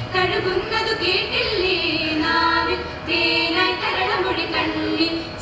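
A group of teenage girls singing a group song together, in phrases of held notes that change pitch every second or so.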